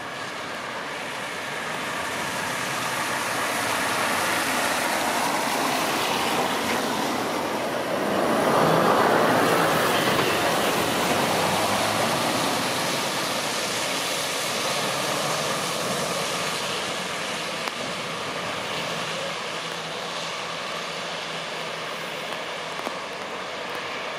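Road traffic on a motorway bridge, with lorries and cars crossing. The noise swells to its loudest about nine seconds in as a vehicle passes, then eases back to a steady rush.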